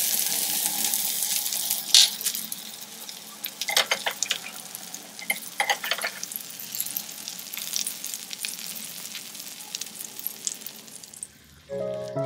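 Mutton gola kababs and sliced onions sizzling on a hot sizzler plate: a loud hiss at first that dies down over several seconds, with sharp clicks of metal tongs against the plate. The sizzle drops out near the end and music begins.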